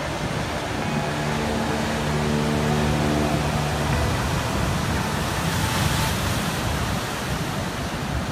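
Ocean surf breaking on a rocky shore, a steady rush of waves that swells and eases. Soft sustained music tones sit underneath in the first half.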